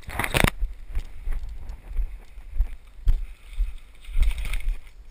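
Footsteps walking along a woodland trail, with rustling of clothing and gear. In the first half-second something brushes and scrapes loudly right against the microphone.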